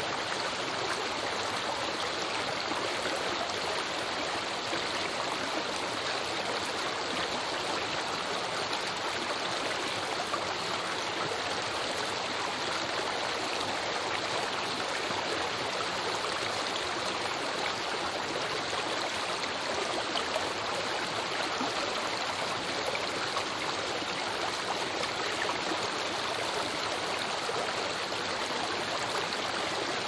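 Small creek rushing and babbling steadily, an even, unbroken splash of flowing water.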